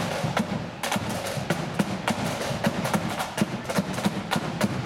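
Marching flute band's side drums beating a steady march rhythm with sharp, evenly spaced stick strokes, without the flutes.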